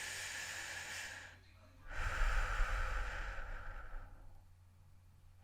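A person breathing heavily: two deep breaths, the second longer and louder with a low rumble.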